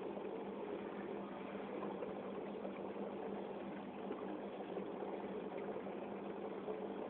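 Aquarium running steadily: a constant hum with water bubbling and fizzing over it, typical of an air pump feeding a bubbling air stone or filter.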